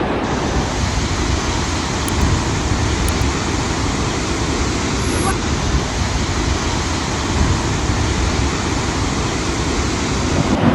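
Steady rushing roar of fast-flowing floodwater, with wind buffeting the microphone.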